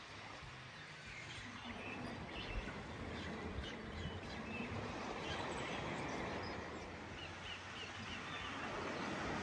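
Steady outdoor wind and water noise that slowly grows louder, with a few faint bird chirps in the middle.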